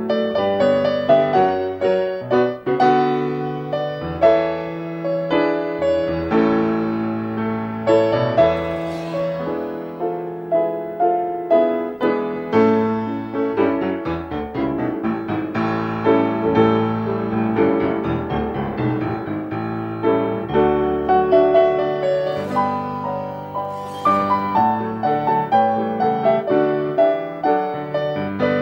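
Solo piano music: a continuous run of struck notes and chords.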